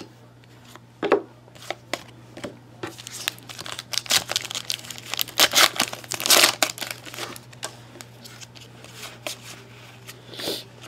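Foil trading-card pack being torn open by hand, its wrapper crinkling in a dense run of crackling rips for several seconds in the middle. There are a few light clicks of cards being handled before and after.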